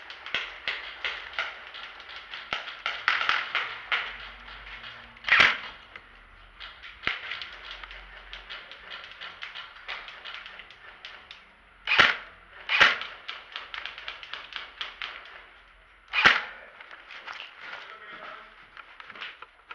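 Airsoft guns firing: a steady patter of quick snapping shots, with four louder, sharper cracks spread through, two of them close together.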